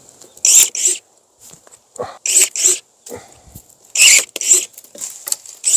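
Hand pruning saw cutting through a Japanese apricot (maesil) branch, in short strokes that come in quick pairs about every second and a half. The cut is part of cutting the tree back to lower its height.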